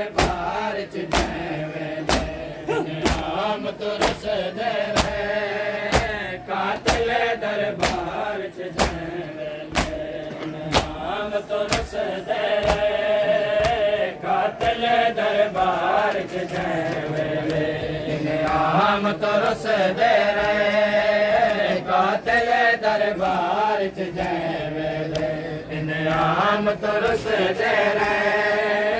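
Group of men chanting a noha (Shia lament) in unison, with hand slaps of matam on the chest keeping the beat, about one to two strikes a second. The slaps thin out and mostly stop about halfway through while the chanting goes on.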